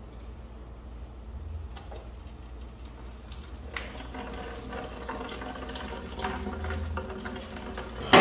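Water trickling and splashing onto a wet concrete floor, growing from about three seconds in, with a few light metal knocks.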